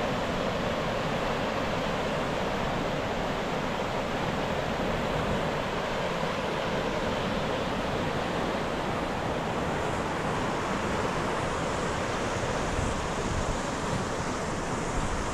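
Fast, shallow river rushing steadily over stones and gravel rapids.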